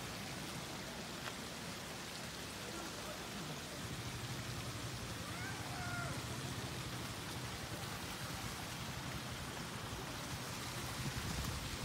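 Steady rain-like hiss of water splashing into a swimming pool from its water features.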